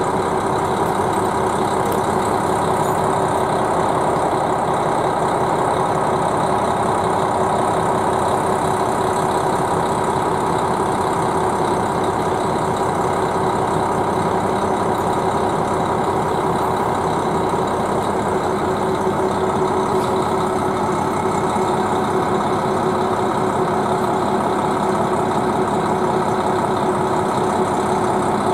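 KiHa 261 series diesel railcar idling at the platform: a steady engine hum with no change in pitch or level.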